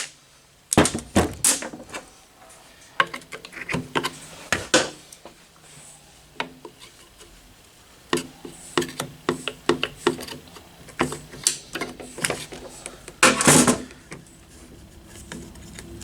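Wrenches, sockets and metal engine parts clinking and knocking as the bolts come out of a UTV engine's flywheel cover. About 13 seconds in, a power driver runs in one short burst.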